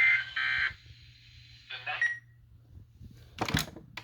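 The last two bursts of an Emergency Alert System end-of-message data signal: short, raspy bursts of two rapidly alternating tones, marking the close of a weather radio alert. About three and a half seconds in comes a short cluster of loud clicks.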